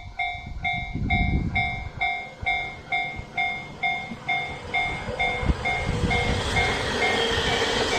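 Japanese level-crossing electronic warning bell ringing in even pulses about twice a second. A train passes through the crossing, its wheels thumping over the rail joints, and the rumble grows louder near the end.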